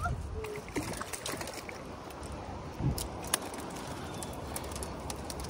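Steady rushing of river rapids, with a few faint clicks about three seconds in.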